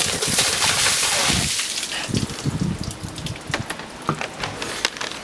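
A bucket of water pouring and splashing over a seated person, stopping about a second and a half in, followed by a few gasps and scattered drips and splatters.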